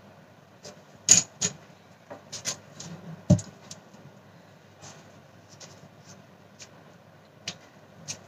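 Paper and card being handled and pressed onto a cutting mat: rustling and crinkling with a series of sharp clicks and taps. About three seconds in a plastic glue bottle is set down on the table with a thump, the loudest sound.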